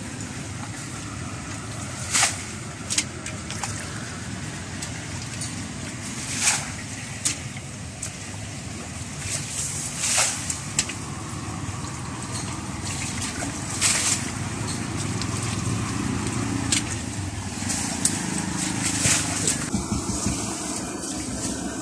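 Hands and feet splashing and sloshing in shallow muddy water, with short sharp splashes every few seconds over a steady low rumble.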